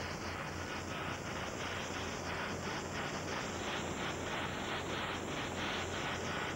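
Helicopter cabin noise picked up by a camcorder: a steady rotor and engine hiss that pulses about four to five times a second over a low hum.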